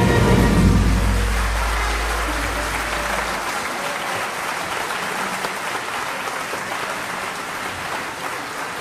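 Audience applause, slowly fading, after a choir's last sung chord ends just after the start.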